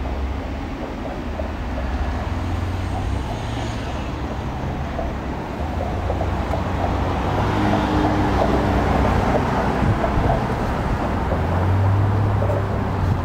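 Road traffic: car engines rumbling as vehicles pass, growing louder about halfway through.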